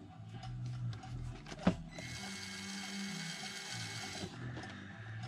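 Traxxas TRX-4M crawler's small electric motor and gear train running for about two seconds, after a single sharp click, with a wheel binding against its hex.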